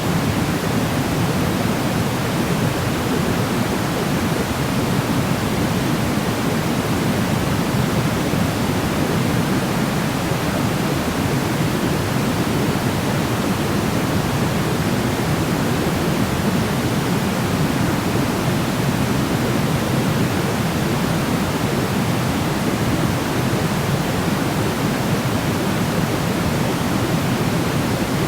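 Steady sleep noise, unchanging and hissing evenly, weighted toward the low end like pink noise rather than bright white noise.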